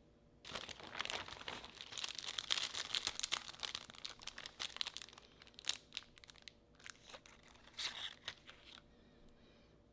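Plastic crinkling as a plastic shopping bag and plastic-packaged goods are handled: dense crinkling that starts about half a second in, thins to scattered rustles after about five seconds, with one more burst near the eight-second mark.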